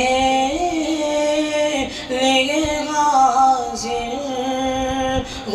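A boy singing an Urdu naat unaccompanied, drawing each syllable out into long held notes that bend slowly up and down in pitch.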